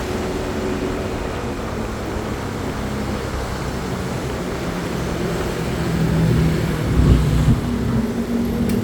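Roadside traffic: heavy vehicle engines running past, the rumble growing louder about six seconds in as a vehicle comes close.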